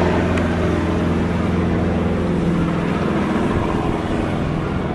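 Helicopter in flight, its engine and rotor giving a steady, low-pitched running sound.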